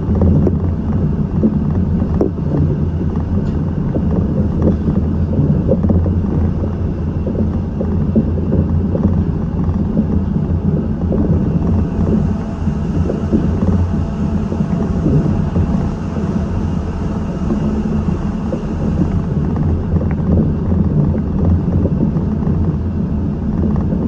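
Steady running noise of a Seibu 8500-series rubber-tyred guideway train car heard from on board: a continuous low rumble with a faint steady whine above it. A hiss swells for several seconds around the middle and then fades.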